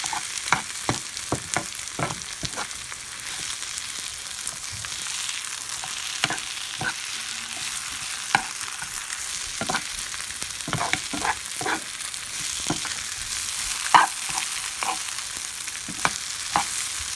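Whole koi fish (climbing perch) frying in hot oil with sliced onions: a steady sizzle, broken by frequent irregular clicks and scrapes of a spatula turning the fish in the pan.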